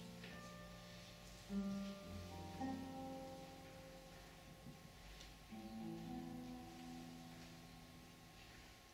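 Solo classical guitar played softly: plucked notes and chords left to ring, with the loudest chord struck about a second and a half in.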